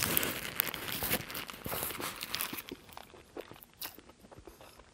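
Close-miked bite into a Burger King Roadhouse King burger held in its paper wrapper: the paper crinkles and the food crunches, then chewing with small wet clicks that grow quieter and sparser after about two and a half seconds.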